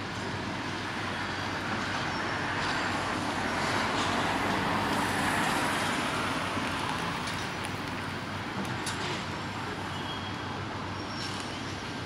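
Street traffic and construction-site machinery over a steady low hum; a road vehicle swells past and fades in the middle, and a few faint clanks come through.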